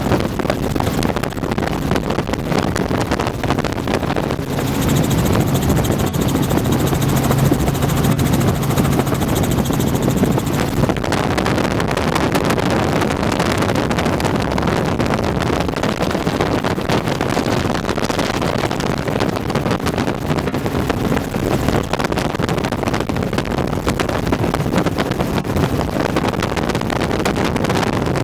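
Helicopter rotor and engine running steadily, with a dense continuous noise. A humming tone stands out from about four to eleven seconds in.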